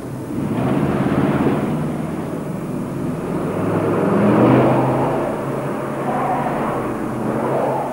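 An engine running, its pitch rising in stretches.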